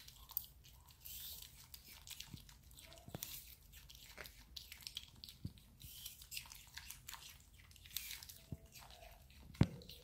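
White-faced capuchin monkeys biting and chewing firm fruit: irregular crisp crunches and wet chewing sounds, with a sharper knock near the end.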